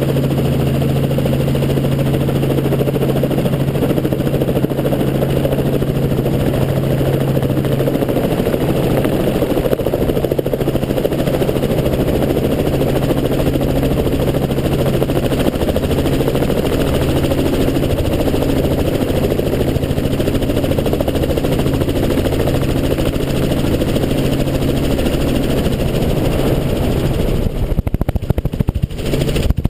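Helicopter in flight: the rotor and engine make a loud, steady drone with a low hum. It breaks up briefly near the end.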